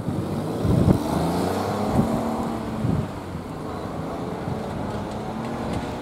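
A road vehicle's engine pulling away, its pitch rising over the first couple of seconds and then levelling off, with wind buffeting the microphone.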